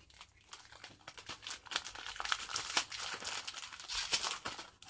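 Candy-bar wrapper crinkling and tearing as it is pulled open by hand, in quick irregular crackles.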